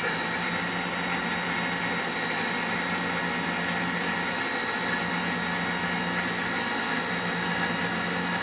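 ACE KISS 104 selective soldering machine running with its solder fountain pump going while a circuit board is processed over the nozzle: a steady hum with hiss and a few constant tones.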